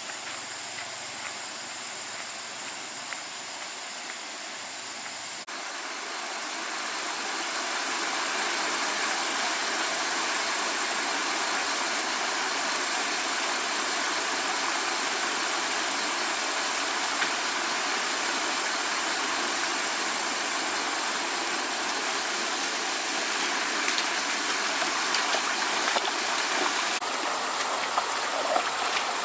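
Rushing water of a stream, a steady wash of noise that swells up about six seconds in and then holds.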